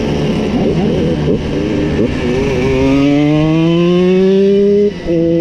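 Simson two-stroke moped engines revving unevenly, then one engine accelerating with its pitch rising steadily for about two seconds before a brief dip at a gear change and pulling on again.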